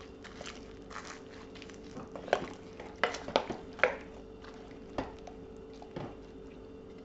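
Wooden spoon stirring chunky vegetables and stock around a whole chicken in a slow cooker, knocking against the pot: a scattering of light knocks and scrapes over a faint steady hum.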